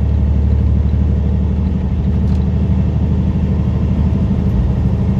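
Heavy truck's diesel engine running steadily at highway speed, a constant low drone with road noise, heard from inside the cab.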